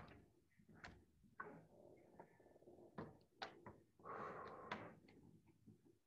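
Faint scattered knocks and clicks in a small room, with a short rustle about four seconds in.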